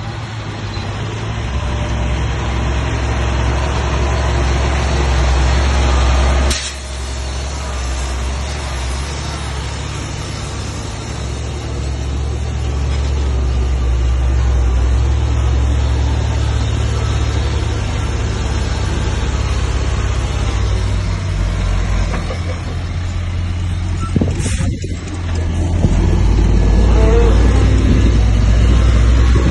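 Heavy diesel earthmoving machinery running with a steady deep rumble. Two brief sharp sounds break through it, one about six seconds in and one about twenty-four seconds in.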